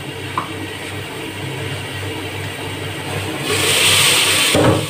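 A steady low mechanical hum runs throughout. About three and a half seconds in, a loud sizzling hiss rises for about a second as the glass lid comes off the pot of frying onions, tomatoes and chicken, then a short clatter near the end.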